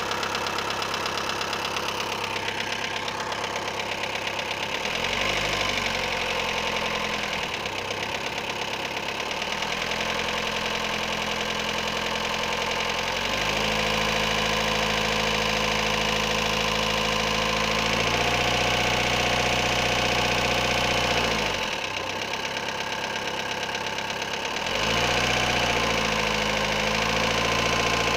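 Engine with a knock, idling and then revved up and held at several steady speeds before dropping back toward idle, several times over.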